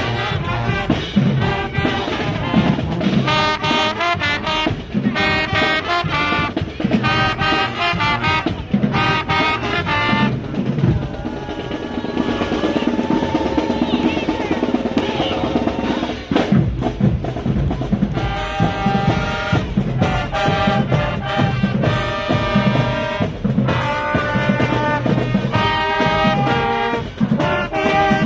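High school marching band playing: brass section in loud punchy phrases over a steady beat of marching snare and bass drums. About ten seconds in, the brass phrases drop out for several seconds, then come back in.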